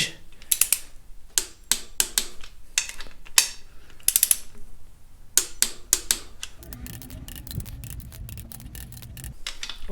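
Click-type torque wrench ratcheting in sharp, irregular clicks as it tightens engine main bearing cap bolts, with a faster run of clicks later on. This is the first torque stage, 29 ft-lb, and the wrench clicks off when the set torque is reached.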